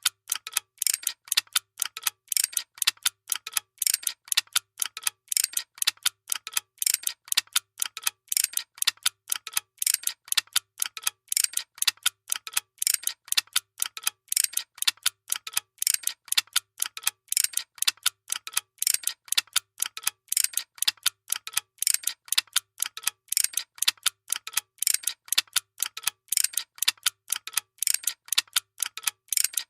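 Workshop machinery clicking in a fast, even rhythm of about five or six sharp ticks a second.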